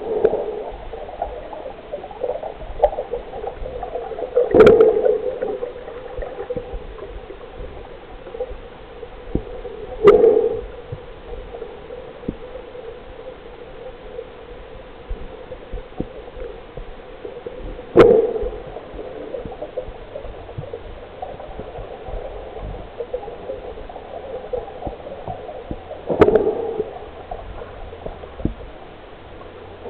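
Muffled underwater sound of a freediving dive: a steady dull water murmur, broken by five sharp knocks spaced several seconds apart, each trailing off in a brief low ring.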